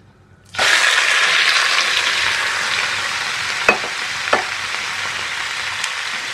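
Marinated chicken pieces hitting hot mustard oil in a stainless steel pan: a sudden loud sizzle about half a second in that settles into steady frying. Two sharp clicks come partway through.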